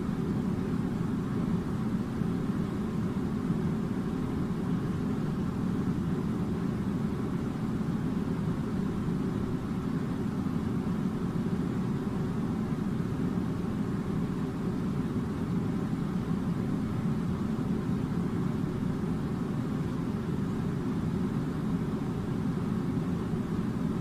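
Steady low machine drone, an even rumbling hum that does not change.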